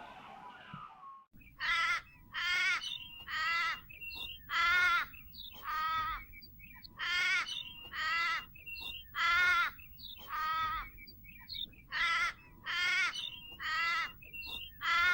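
A crow cawing: harsh, rasping caws in runs of three or four, about fifteen in all, starting about a second and a half in.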